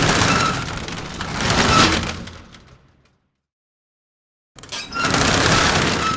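A door sound effect played twice: each take is a couple of seconds of scraping, rattling movement with a faint squeak, about four and a half seconds apart.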